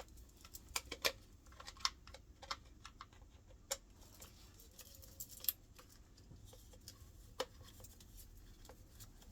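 Scattered light clicks and taps, about eight or nine over several seconds, from hands and a screwdriver working at a washing machine's loose back cover and its screws.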